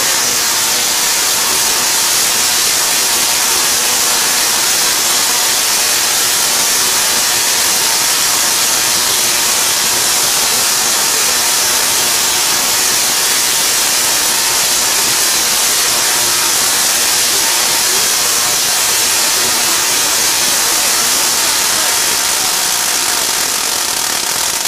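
Tesla coil of about 500,000 volts firing continuously, its spark streamers arcing through the air with a steady, loud hissing crackle.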